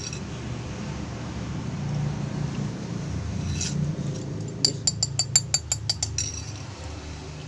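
A metal spoon clinking rapidly against a bowl, about a dozen quick taps over a second and a half, coming a little over halfway in. Just before it a plastic bag rustles, and a steady low rumble runs underneath.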